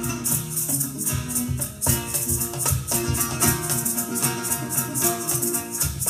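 Latin music with a steady shaker rhythm, played through a Dayton Audio B652-series bookshelf speaker and picked up by a phone's built-in microphone.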